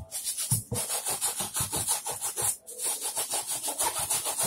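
A stiff cleaning brush scrubbing a Nike Air Huarache sneaker in rapid back-and-forth strokes, several a second, with two brief pauses.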